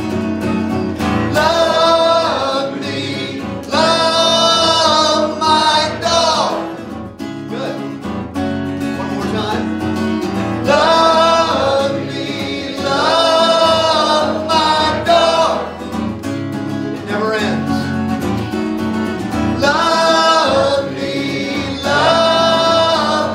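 A man singing a song while strumming an acoustic guitar, with a second acoustic guitar accompanying him; the sung phrases come in held notes over steady strumming.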